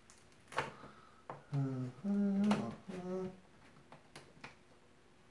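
Steak knife slitting packaging tape on a cardboard box, with sharp clicks and scratches scattered throughout. In the middle a man hums a few short notes, the loudest sound.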